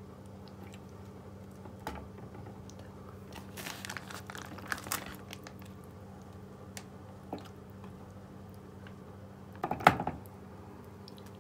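Plastic bag of marinated chicken thighs crinkling and squelching as the pieces are pulled out and laid on a baking tray, with small clicks against the tray. Near the end comes one sharp knock, the loudest sound, over a low steady hum.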